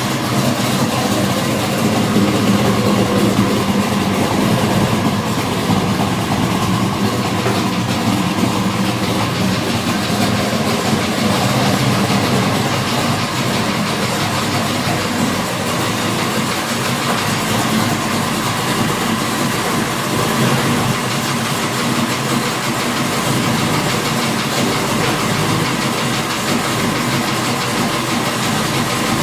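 540 cubic-inch big-block Chevrolet V8 running steadily. The owner is trying to pin down an odd engine noise that comes and goes.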